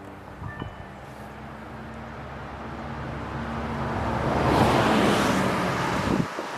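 A car passing by on the road, its tyre and engine noise swelling to its loudest about five seconds in and then falling away.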